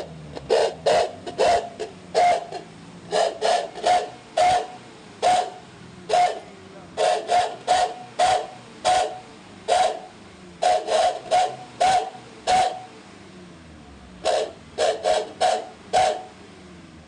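Repeated sharp metal-on-metal strikes at an uneven pace, each with a brief ring, like a hammer working metal. There is a short pause about two-thirds of the way through.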